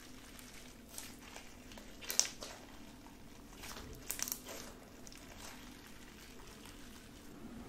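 Soft glue-and-borax slime being stretched and squeezed by hand: faint sticky squishing with a few short crackles and pops, the sharpest about two seconds in and another cluster about four seconds in.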